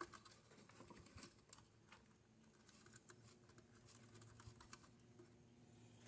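Near silence: faint, scattered clicks and taps of hands handling a metal amplifier chassis and its rear-panel connectors, over a faint steady low hum.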